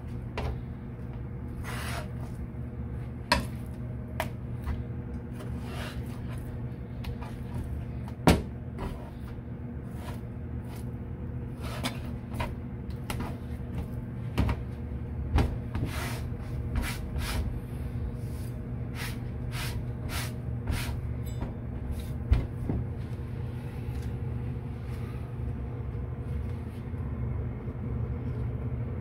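Scattered knocks and clicks of a knife and fish being handled on a cutting board during filleting, over a steady low hum.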